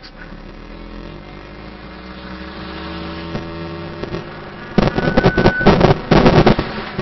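Car engine humming inside the cabin, its pitch slowly rising as the car speeds up. About five seconds in, loud gusty wind buffeting on the microphone takes over as the camera reaches the open side window.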